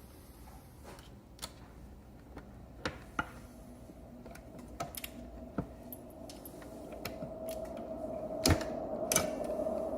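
Scattered metal clicks and knocks as the hub-motor wheel's axle is worked into the scooter frame's dropouts, the sharpest knock about eight and a half seconds in. A faint steady hum comes up in the second half.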